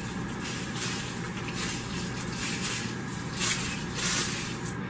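Hand-pump pressure sprayer misting water onto soil substrate in a series of short hissing spritzes, the loudest two near the end.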